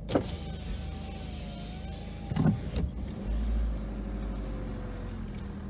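Inside a car on the move: steady engine and road noise with a faint wavering whine, a click at the start and two knocks a little after halfway.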